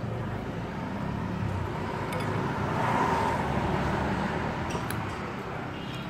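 A road vehicle passing by: its tyre and engine noise swells to a peak about halfway through, then fades away.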